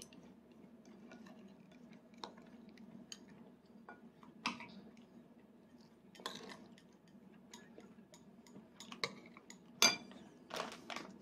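A small metal spoon clicks and scrapes a few times against a plastic divided plate as a toddler scoops rice. The loudest click comes near the end. A faint steady low hum runs underneath.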